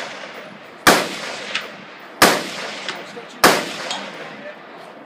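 Three AR-15 rifle shots about a second apart. Each is followed a moment later by a fainter metallic ping, the sound of a steel target being hit downrange.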